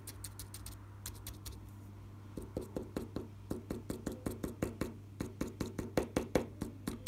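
Stiff-bristle paintbrush dabbed repeatedly onto paper with thick paint, a quick run of short taps, lighter at first and then harder from a little past two seconds in, about five a second. A steady low hum lies underneath.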